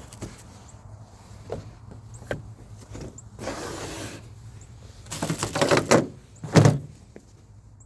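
Handling noises while unboxing: a few light clicks and knocks, then rustling and scraping, loudest in two bursts about five and six and a half seconds in, over a low steady hum.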